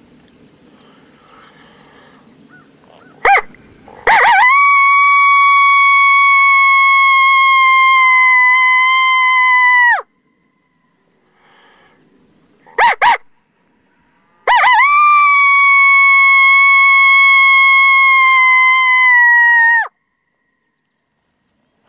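Two coyote lone howls blown on an MFK 2-Reed Pup Howler diaphragm call. Each starts with a short rising yip and goes into one long, steady note held about six seconds, which drops in pitch as it cuts off.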